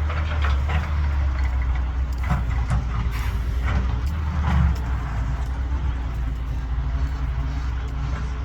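Heavy diesel engine of a Caterpillar 320BL excavator running steadily, with several metallic clanks and knocks in the first five seconds.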